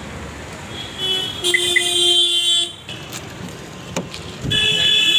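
Vehicle horns sounding twice over street traffic noise: a blast lasting about a second and a half, then a shorter one at a different pitch near the end.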